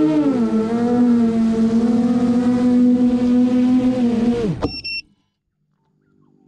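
FPV drone's brushless motors whining at a steady pitch, swelling and dipping briefly with throttle at the start, then spinning down sharply a little over four seconds in. A brief high beep follows, then silence.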